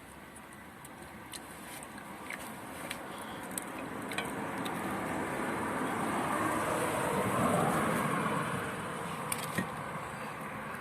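A vehicle passing, its noise swelling to a peak about seven or eight seconds in and then easing off, with a few small clicks.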